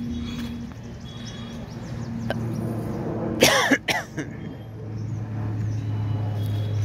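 A child's short, loud vocal sound about three and a half seconds in, over a steady low hum.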